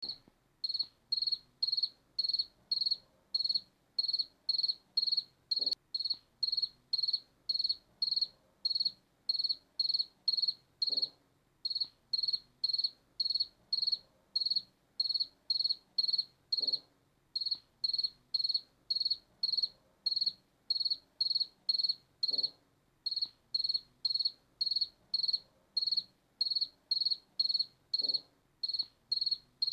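A cricket chirping at an even pace, about two short high-pitched chirps a second, with a brief break in the rhythm every few seconds.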